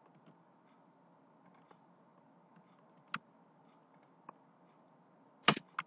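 Faint, sparse clicks of a computer keyboard and mouse in use: a single click about three seconds in, another a second later, then a quick cluster of clicks near the end, over faint room hiss.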